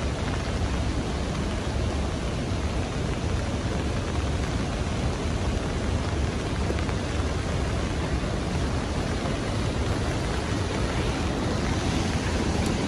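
Steady rushing noise of heavy rain, with a deep low rumble.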